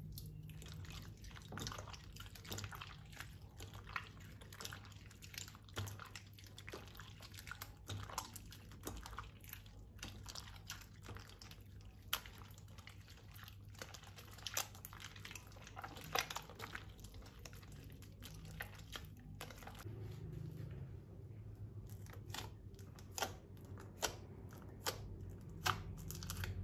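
Slime being squished and worked by hand, giving many irregular wet clicks, pops and crackles, over a faint steady low hum.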